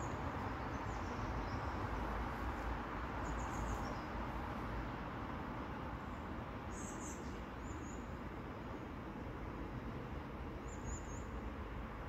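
Small birds chirping outdoors, short high calls every second or few seconds, over a steady rushing background.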